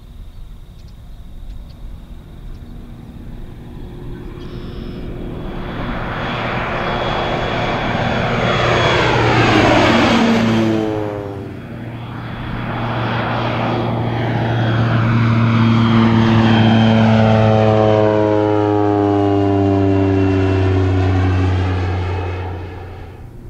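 Air Tractor AT-402 crop duster's PT6A turboprop engine and propeller passing low twice: the drone swells as the plane approaches, then falls in pitch as it goes by, about ten seconds in and again near the end, where it fades away.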